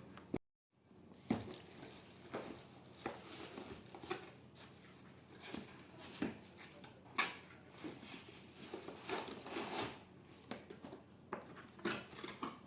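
Scattered small clicks, taps and rustles of hands handling laptop parts and plastic, with a brief cut to silence about half a second in.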